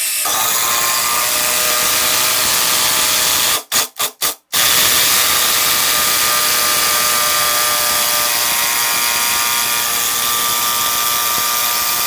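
Kobalt 24V brushless impact driver hammering steadily as it drives a long 5/16-by-10-inch construction screw, stopping and restarting four times in quick succession about four seconds in.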